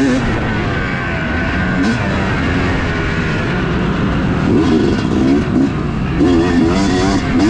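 2018 Yamaha YZ250's single-cylinder two-stroke engine being ridden hard. It runs at a fairly steady pitch at first, then revs up and down in quick swells through the second half.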